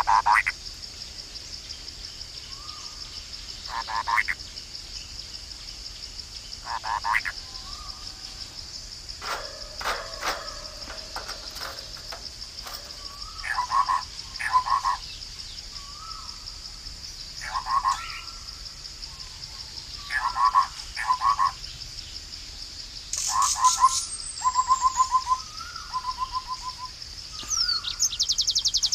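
Tropical forest sounds: a steady high insect drone throughout, with short pulsed croaking calls repeated every few seconds and soft rising whistled notes between them. Near the end, high bird chirps join in.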